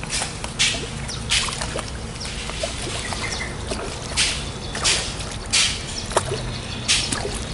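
Water splashing and trickling in about six short bursts, with small drips between them.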